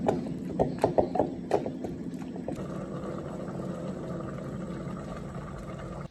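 A hot pot of vegetables and beef simmering while being stirred: the utensil knocks against the pot several times in the first couple of seconds over a steady low hum, then an even bubbling noise runs on and cuts off suddenly near the end.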